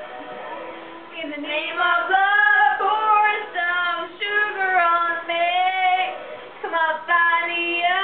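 Women singing loudly, held notes with a wavering pitch, starting about a second in and breaking off briefly near six seconds before going on.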